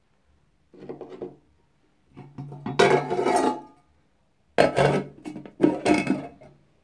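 Metal cooking pot and its lid clattering in four bursts, the longest and loudest about two to three seconds in, as the pot is handled and the lid is set on it.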